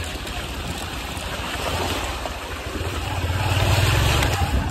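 Motorcycle engine running under way, getting louder about three seconds in, over a steady rushing noise.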